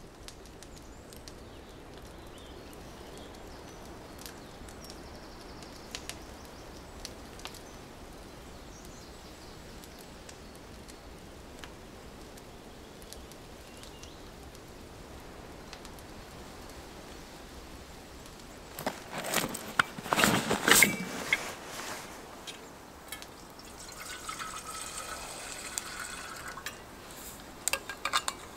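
Faint steady outdoor background with a few small ticks. About 19 seconds in there is a loud burst of clattering as a metal vacuum flask and camp cookware are handled, and then near the end liquid is poured for a few seconds.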